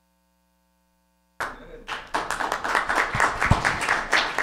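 Audience applauding: silence for about a second and a half, then many people clapping.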